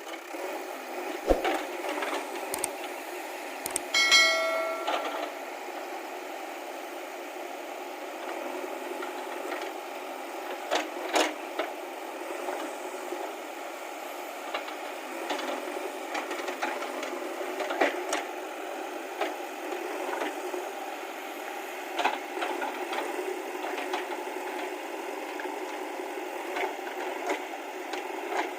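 JCB 3DX backhoe loader's diesel engine running steadily while it works, with scattered sharp metallic knocks and clanks. There is a brief ringing clang about four seconds in.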